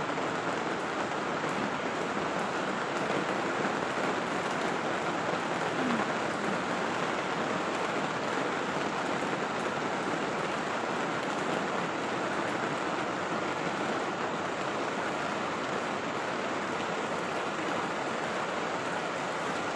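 Heavy rain falling steadily, an even hiss of rain that holds unchanged throughout.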